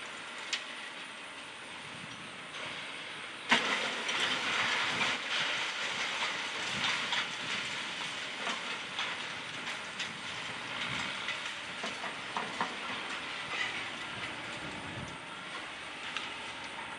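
A wrecking ball strikes a brick building with a sharp bang about three and a half seconds in, followed by about ten seconds of masonry and debris clattering and crumbling down, dying away near the end.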